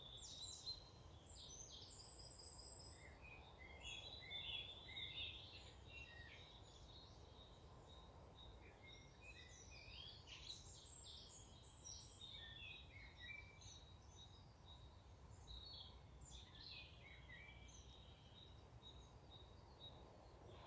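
Faint birdsong: many short chirps and twitters from several birds, scattered throughout over a low steady background rumble.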